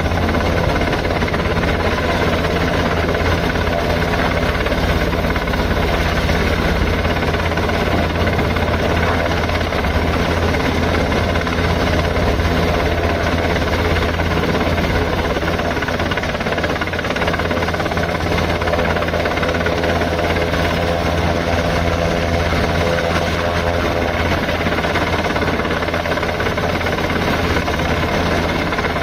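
Rescue helicopter's rotors and engine running, a loud steady drone that holds unchanged throughout.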